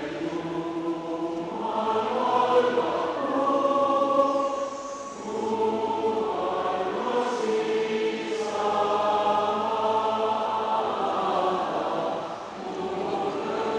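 Many voices singing together as a massed choir in slow, long-held notes. The singing dips briefly about five seconds in and again near the end, between phrases.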